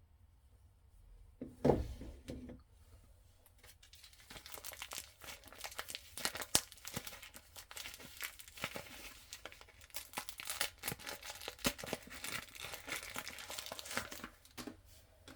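A soap bar's packaging being torn open and crinkled, with dense crackling from about four seconds in until just before the end. There is a single dull thump near the start.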